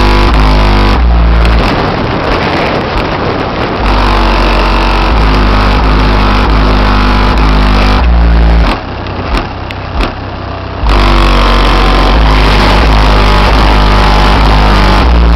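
Bass-heavy music played very loud through two 15-inch Kicker CVX subwoofers driven by a 5500-watt amplifier, heard from outside the car: a line of held deep bass notes that drops out for about two seconds past the middle, then comes back.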